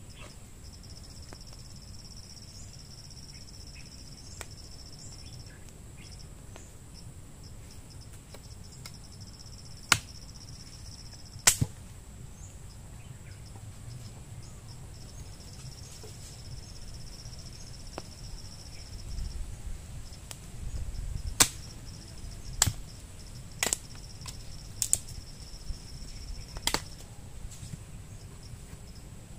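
Insects chirring with a high, steady tone that drops out and returns, broken by about seven sharp snaps or knocks at irregular intervals, two near the middle and a cluster in the second half. A low rumble runs for a few seconds partway through.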